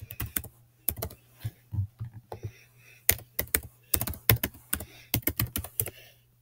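Typing on a computer keyboard: irregular keystrokes, some in quick runs, with short pauses between words.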